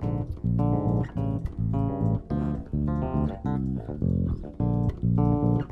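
Bass guitar played as a lead instrument in a northeastern Brazilian (baião-style) piece: a string of plucked chords and notes, each ringing briefly with short gaps between.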